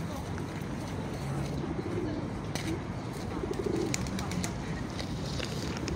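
Pigeons cooing, two low warbling coos about two seconds apart, with a few sharp clicks in between over steady low outdoor background noise.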